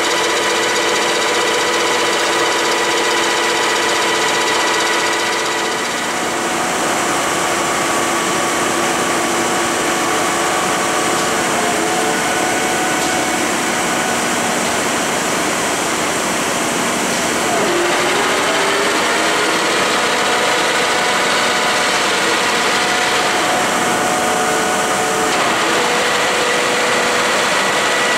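1969 Lucas 441B-72 table-type horizontal boring mill running under power, giving a steady machine whine made of several held tones as its table traverses. The tones shift in pitch a few times along the way.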